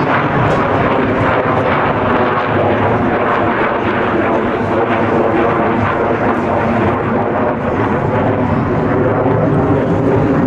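Loud, steady jet noise from a General Dynamics F-111C's twin turbofan engines, holding level without a sudden change.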